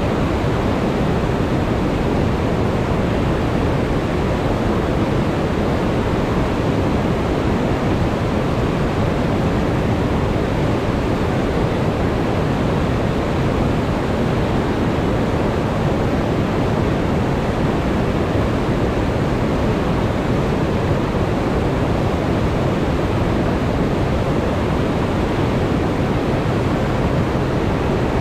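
Whitewater rushing: a river pouring over a dam spillway and churning through rocky rapids below it. A loud, deep, unbroken rush that stays the same throughout.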